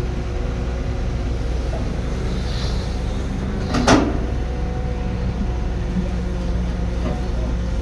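Heavy construction machine's diesel engine running steadily, with one loud clank about four seconds in.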